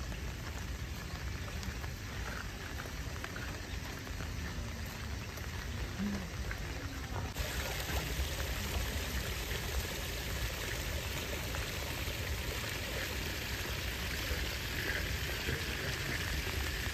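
Steady rain and running water in a garden pond, a continuous hiss of drops and trickling; about seven seconds in the water noise grows louder and brighter.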